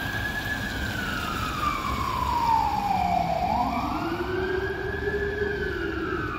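Scania fire engine's siren wailing on an emergency run, rising quickly and falling slowly in a cycle of about three and a half seconds. A second, lower wail joins about halfway through.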